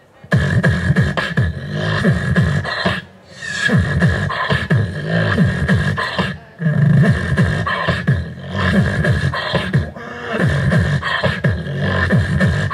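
Solo beatboxing, all by mouth into a handheld microphone: a groove of repeated falling bass sweeps with sharp snare and hi-hat clicks over a steady held high tone, broken by short pauses about every three to four seconds.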